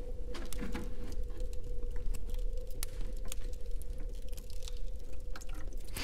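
Plastic water jerrycan and bottle being handled: scattered light clicks and crinkles over a steady hum.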